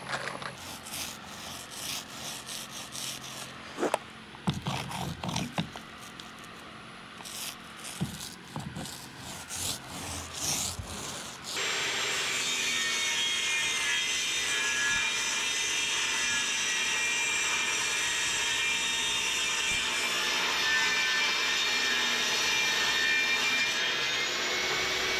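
A paint roller rubbing over plywood, with scattered clicks and knocks. About twelve seconds in, a portable table saw on a wheeled stand comes in much louder and runs steadily while a long board is fed through it.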